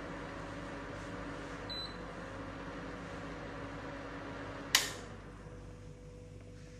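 Induction cooktop humming steadily with its cooling fan, then one short sharp click-beep as it is switched off, after which the hum drops lower.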